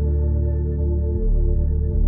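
Slow ambient background music: sustained held tones over low notes, with the low note changing about a second in.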